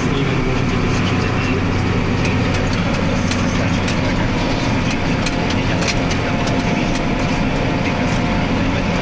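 Massey Ferguson 8280 Xtra tractor engine running steadily under load while pulling a seedbed cultivator, heard from inside the cab, with scattered light clicks and rattles.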